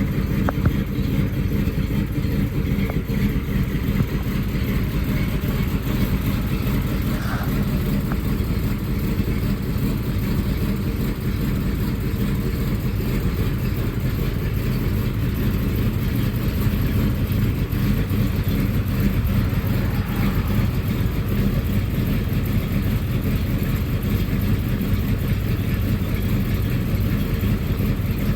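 The 1979 Dodge Li'l Red Express pickup's 360 V8 is idling steadily through its exhaust, warming up after a cold start.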